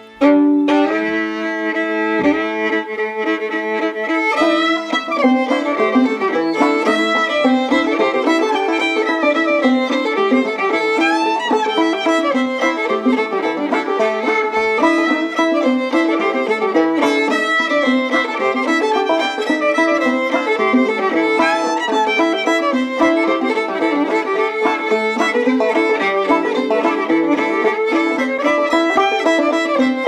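Instrumental background music, a fiddle tune with quick notes that starts abruptly right at the outset.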